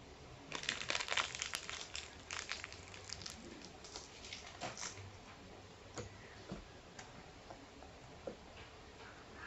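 Foil sweet wrapper crinkling as it is handled and unwrapped, loudest in the first couple of seconds, then thinning to a few scattered rustles and clicks.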